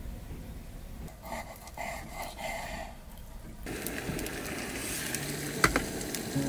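Food sizzling inside a closed hot-sandwich maker pan on a small stove, a steady hiss that starts about halfway in, with a sharp click near the end.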